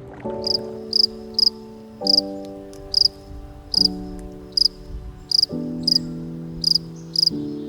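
Background music of slow held chords that change every couple of seconds, with a sharp, high chirp repeating about once or twice a second on top, louder than the chords.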